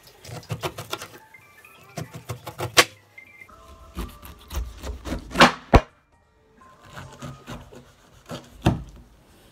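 A kitchen knife cutting through pineapple rind in quick runs of short strokes, over background music. About five and a half seconds in comes a loud knock as the filming phone falls over.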